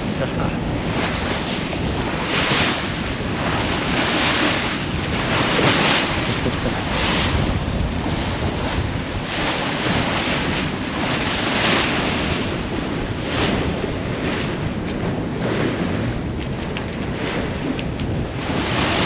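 Sailboat under sail at about 7 knots: water rushing and splashing along the hull in repeated surges every second or two, with wind buffeting the microphone.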